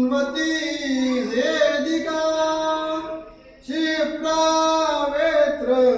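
A man singing a Marathi mangalashtak wedding verse in long, drawn-out held notes. He breaks off briefly about halfway through, then takes up the next line.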